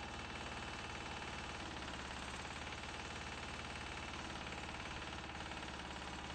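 A heavy machine's engine running steadily.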